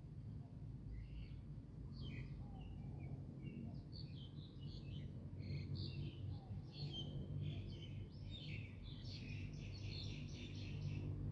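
Small birds chirping in the trees: short high notes throughout, then a quick run of rapidly repeated chirps near the end, over a low steady rumble.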